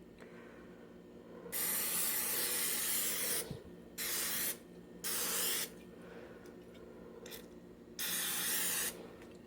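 Vegetable oil cooking spray hissing onto a muffin pan in four bursts: a long spray of about two seconds, two short ones, and a last one of about a second near the end.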